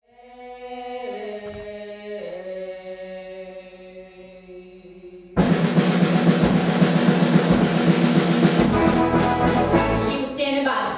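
Music: a quiet held chord that steps down in pitch twice, then, about five seconds in, a sudden loud, dense passage with drums that carries on.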